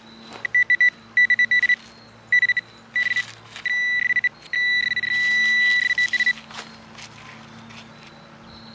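Metal detector beeping over a freshly dug target in loose dirt: several short groups of rapid high beeps, then one steady tone lasting nearly two seconds about halfway through.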